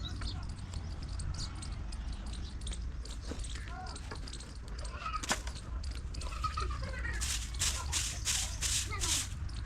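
Farmyard ambience: faint, scattered animal calls over a steady low rumble, a single sharp click about five seconds in, and a run of rhythmic rustling strokes, about two a second, near the end.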